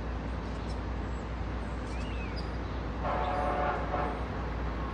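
MBTA diesel locomotive idling at a station platform with a steady low hum. A short horn-like tone sounds about three seconds in.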